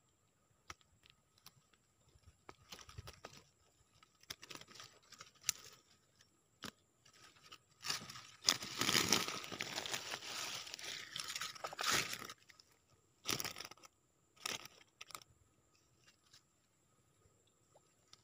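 Scattered clicks and rustling handling noise, with a louder crinkling rustle lasting about four seconds in the middle and two short bursts after it.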